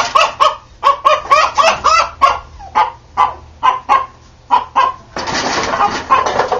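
Rooster clucking in a rapid run of short calls, thinning out after about two and a half seconds into scattered single clucks. About five seconds in comes a second-long burst of rustling noise.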